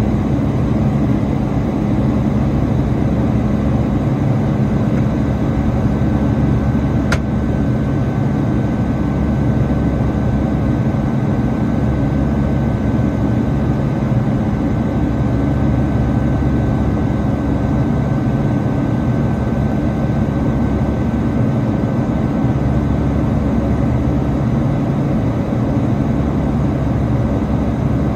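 Cabin noise of a Boeing 757-300 climbing after takeoff, heard at a seat beside the wing and engine: a steady low jet-engine roar. A single click about seven seconds in, after which a faint steady high tone runs on under the roar.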